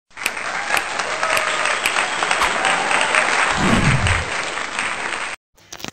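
Recorded applause as the sound of an animated title intro. About five sharp ticks come roughly every half second in the first two and a half seconds, and a low swell follows near four seconds in. It cuts off suddenly about half a second before the end.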